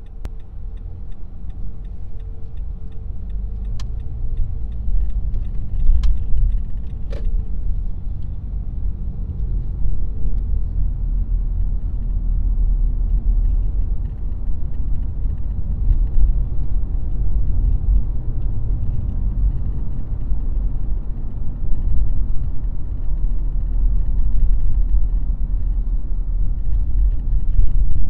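Car driving: a steady low rumble of road and engine noise that slowly grows louder, with a few sharp clicks or rattles about four to seven seconds in.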